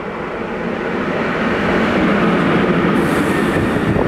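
PKP SM42 diesel-electric shunting locomotive with a track work car passing close by, its diesel engine growing steadily louder as it approaches. Wheel clatter begins near the end as the work car goes past.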